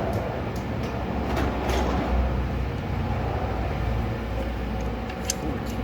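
Steady low rumble with a few light metallic clicks of a socket and wrench being fitted and worked on an alternator bolt.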